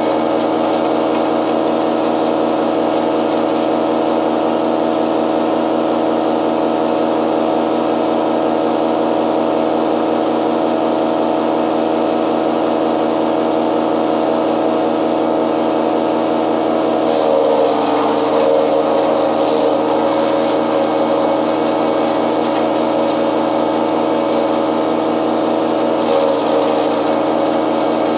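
Chainsaw running steadily and cutting through wood. Its pitch sags under load and recovers about two-thirds of the way through, and shifts again near the end.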